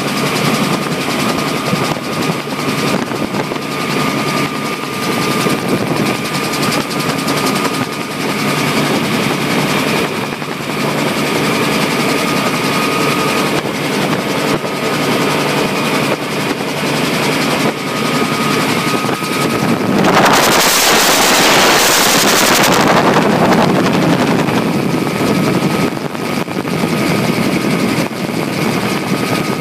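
Helicopter in flight heard from inside the cabin: steady engine and rotor noise with a high whine. Partway through, a loud rushing hiss swells for about three seconds, then fades back.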